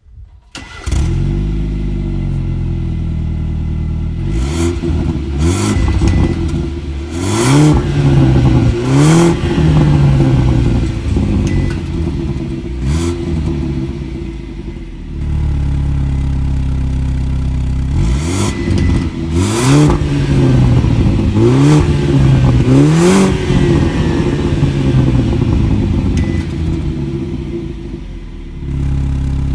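2019 BMW 320i F30's turbocharged four-cylinder engine on the stock exhaust, warm-started about a second in and settling to idle. It is then blipped up and down repeatedly in two series of free revs, each dropping back to a steady idle.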